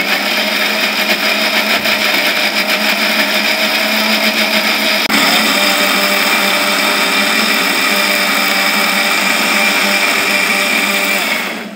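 Electric mixer grinder running at full speed, blending a tomato, onion, garlic and dried-chilli chutney in its small steel jar. There is a brief click about five seconds in, and the motor winds down just before the end.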